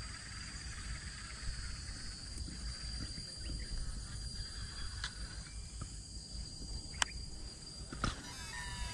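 Steady, high-pitched insect drone over a low rumble, with two sharp clicks about seven and eight seconds in.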